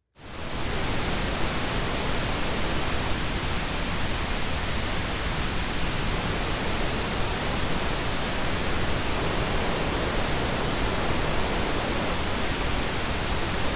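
Pink noise test signal made in Audacity, playing steadily, with a narrow parametric EQ band (Q of 4) at 500 Hz cut by 3 dB, which sounds a little hollow, then boosted by 3 dB.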